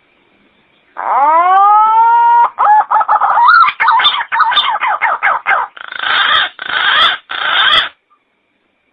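A bird's call played from a sound-effect recording: one long note that rises and then holds, then a fast run of short choppy notes, ending in three rough, hoarse notes.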